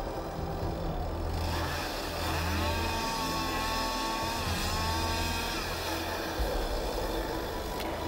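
Chainsaw revving up about two and a half seconds in, running at high speed for about three seconds, then dropping back, over a steady low rumble.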